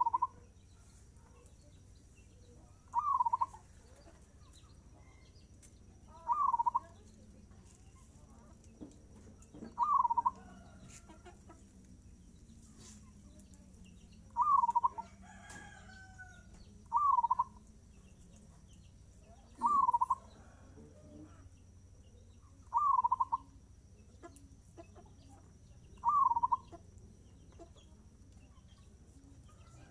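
Zebra dove (perkutut) in full song, repeating its short cooing phrase about every three seconds, nine phrases in all.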